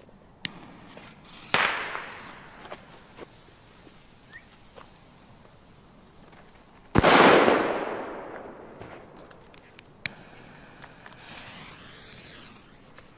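Cialfir Trueno Extrem Rojo Spanish firecracker with a green-glowing fuse: a brief fizz as it catches near the start, then one sharp, loud bang about seven seconds in that fades over a second or so. A smaller crack follows about three seconds later, then a short hiss.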